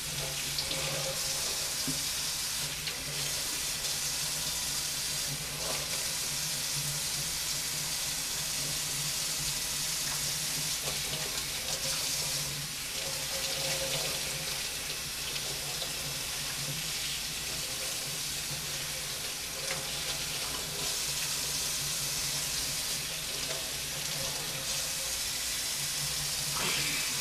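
Kitchen faucet running steadily into a stainless steel sink. The stream splashes over hands and puffer fish pieces being rinsed under it.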